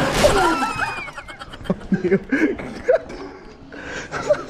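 A group of people laughing and chattering, loudest in the first second, then scattered snatches of voices and light clicks.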